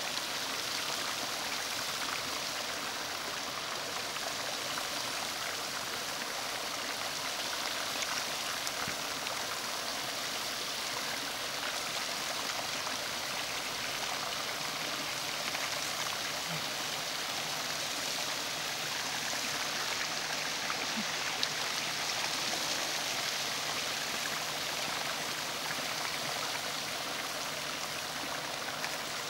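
Hot spring water running steadily over travertine terraces, an even, unbroken rushing sound.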